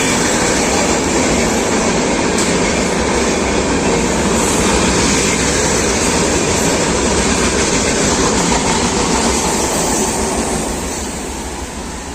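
Train running on rails, heard from aboard a moving passenger train: a steady loud rumble and rail noise that eases off near the end.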